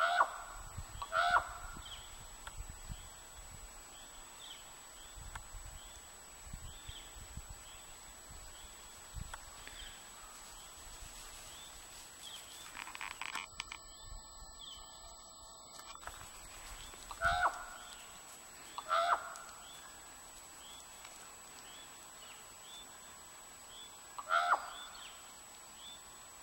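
Short, pitched animal calls, mostly in pairs a second or so apart, heard five times. A faint, high chirp repeats steadily under them.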